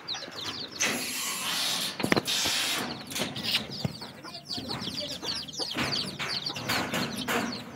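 Chickens clucking and small birds chirping with many short, high calls, over a stretch of rustling noise about a second in and a few sharp knocks.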